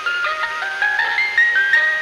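Creepy ice cream truck chime playing its jingle: a melody of quick single notes that climbs in pitch over the first second or so, then sits high, over a steady low drone.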